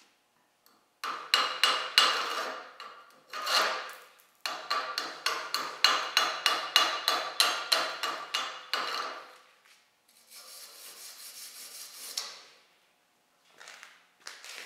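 Steel wire brush scrubbing a fresh MIG weld on steel plate in quick, sharp strokes, about three a second with short pauses between runs, then a softer, steadier scrubbing about ten seconds in.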